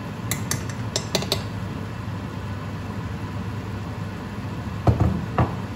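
Cooking utensils at a frying pan: a few light metallic clinks of a small spoon in the first second and a half, then two duller, heavier knocks near the end, over a steady low hum.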